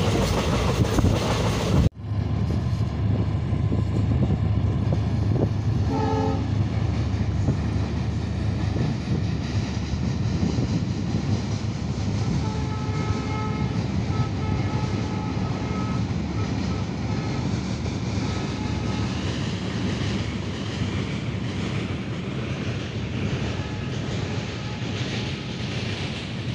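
Passenger train crossing a steel truss bridge: a steady low rumble, with a short horn blast about six seconds in and fainter, held horn tones from about twelve to nineteen seconds. The first two seconds, before a cut, are running noise heard from aboard a moving train.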